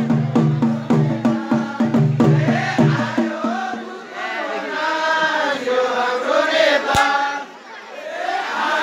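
Festival drum beating a steady rhythm of about two to three strokes a second, which stops after about three seconds. A group of voices then sings or chants together, with one sharp click late on.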